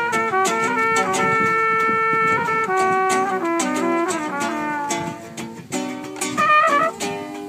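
Live acoustic trio: a trumpet plays a melody of long held notes, moving to shorter, quicker phrases near the end, over two acoustic guitars strummed in a steady rhythm.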